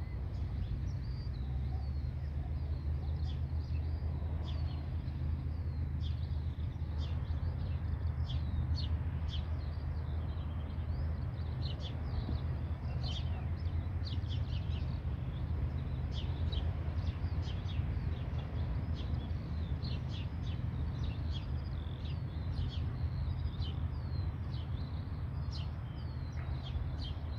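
Distant SOCATA TB 10 Tobago's four-cylinder piston engine running with a steady low drone before the take-off run, with birds chirping again and again over it.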